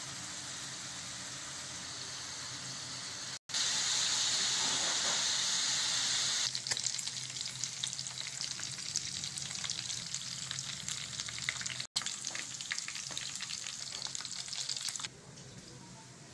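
Parboiled beef chunks frying in hot oil in a pan: a steady sizzle that grows louder a few seconds in, then turns to crackling and spitting. It cuts out briefly twice and stops shortly before the end.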